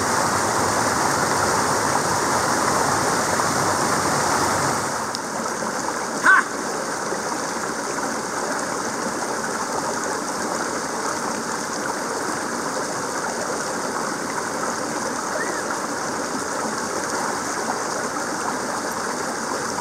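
Water of a rocky stream rushing steadily over boulders, a little quieter from about five seconds in. One short, louder sound about six seconds in.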